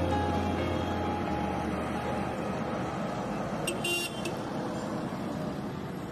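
Roadside traffic ambience on a highway, with one short, high-pitched vehicle horn toot about four seconds in; the whole sound slowly fades.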